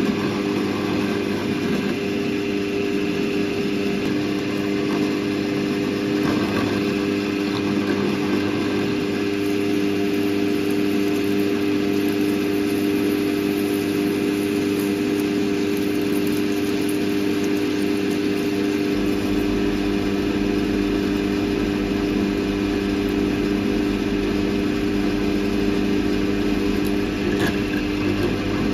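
Drill press running steadily with a constant motor hum, its twist drill cutting a bolt hole into a thick metal plate. The running stops near the end.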